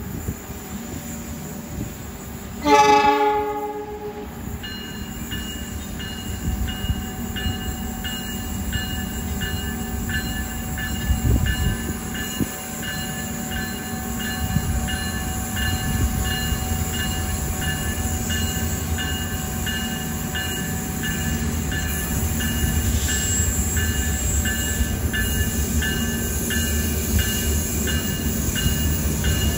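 A diesel locomotive's horn sounds one short blast about three seconds in, over the steady rumble of a running train. From shortly after, a faint high-pitched ringing repeats at an even pace.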